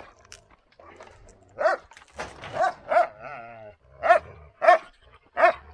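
Dog barking repeatedly, about seven short barks over a few seconds, with a brief wavering whine partway through.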